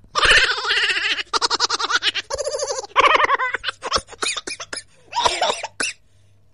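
A person laughing and giggling, high-pitched, in quick runs of short breathy bursts with brief pauses between them.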